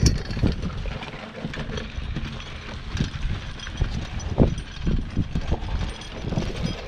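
A heavy tractor tire dragged over dirt and grass by a horse on a chain and singletree, making an uneven scraping noise with irregular knocks and chain clinks.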